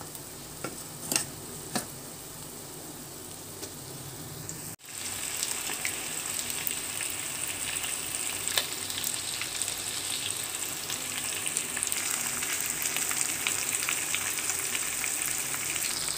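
Chicken pieces sizzling in hot oil with onions and green chillies in a pan. A few sharp clicks come in the first two seconds, and after a brief break about five seconds in the sizzle is louder and steady.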